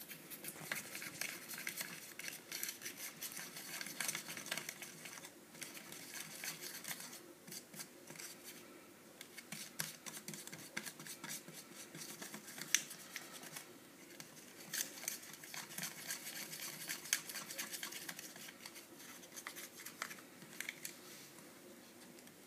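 A tiny plastic spoon scraping and clicking rapidly against a small plastic tray as ketchup powder and water are stirred into a sauce.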